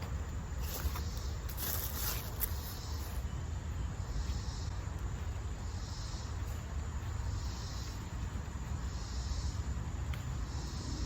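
Insects chirping outdoors in short, high pulses about once every second and a quarter, over a steady low rumble of wind on the microphone, with some rustling of plants being handled in the first few seconds.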